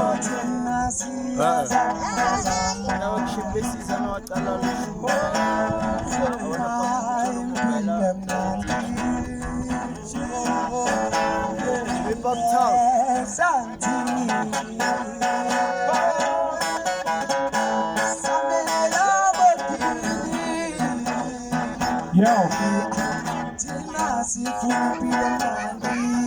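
Music led by guitar, with a singing voice over it.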